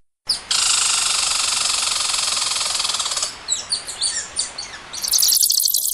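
Birds chirping: a dense, steady high trill for about three seconds, then a few separate quick falling chirps. About five seconds in, a loud steady hissing, crackly noise takes over.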